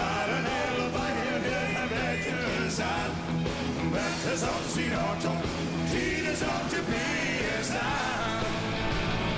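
Background rock-and-roll music with a singing voice.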